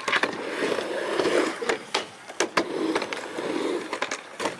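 Skateboard riding a concrete bowl: the wheels roll with a rumble that swells and fades on each pass, broken by several sharp clacks as the trucks and board strike the coping.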